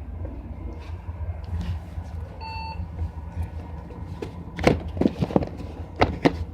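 Compaq Portable's PC speaker giving one short beep, typical of the power-on self-test as the machine starts up, over the steady low hum of the running computer. From about two-thirds of the way in, a run of sharp clicks and knocks of things being handled.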